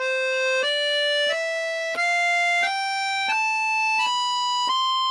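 Accordion playing a scale upward, eight held notes one after another, climbing about an octave.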